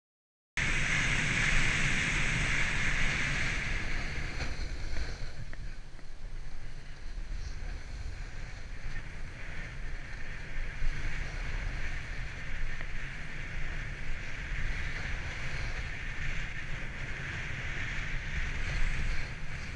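Wind buffeting an action camera's microphone, over the hiss and scrape of a snowboard sliding on packed, tracked snow, starting after about half a second of silence. The scraping hiss is louder in the first few seconds and again near the end.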